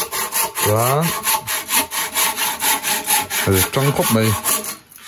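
Hand saw cutting through a wooden log in quick, even back-and-forth strokes, stopping shortly before the end.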